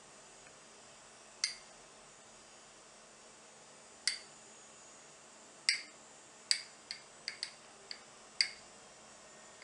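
A metal spoon clinking against a ceramic dish: about nine short, sharp ticks, each with a brief ring, spaced out at first and coming in quick succession in the second half.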